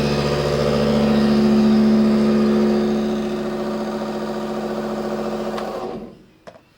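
Milling machine running with a face mill cutting across the face of a cast Zamac block: a steady, pitched machine hum with a cutting hiss. The sound is loudest in the first half, eases somewhat after about three seconds, and stops shortly before the end.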